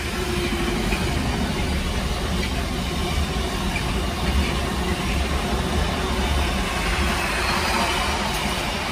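Container freight train passing at speed: a steady, even noise of its wagons' wheels running over the rails.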